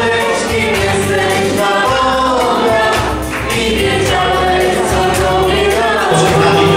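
A small vocal group singing a religious song through microphones over amplified instrumental accompaniment.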